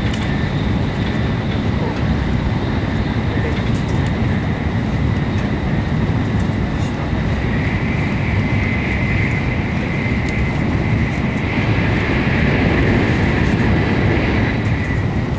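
Cabin noise inside a Shinkansen bullet train running at high speed: a steady low rumble of the train on the rails with a faint steady high whine. It grows a little louder in the second half.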